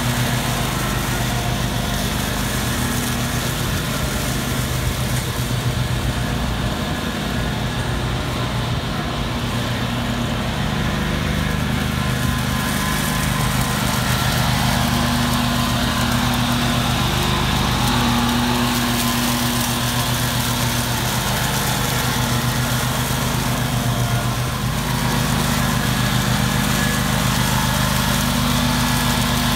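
Exmark Vantage stand-on mower's engine running steadily, its blades spinning as it mulches dry leaves on asphalt.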